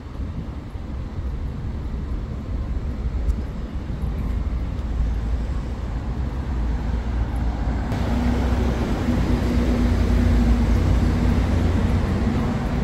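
City street traffic: a steady low rumble of vehicles that grows louder, with a vehicle passing close from about eight seconds in and adding a hum.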